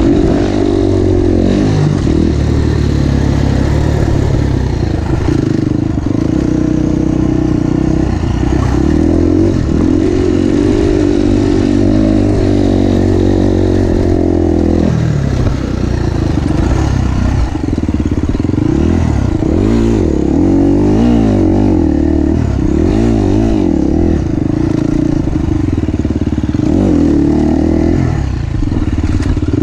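KTM 350 SX-F single-cylinder four-stroke motocross engine revving hard as the bike is ridden around a dirt track, its pitch rising and falling over and over with throttle and gear changes.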